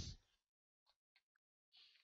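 Near silence: a pause in a man's narration, with a few faint clicks and a soft hiss near the end.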